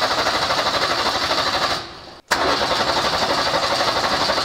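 Mercedes OM617 five-cylinder diesel being turned over on the starter with the injection lines cracked open at the pump, running in a steady, even chug. The sound dies away about two seconds in and starts again straight after. Only three of the five cylinders get diesel, which the owner puts down to stuck injection-pump plungers.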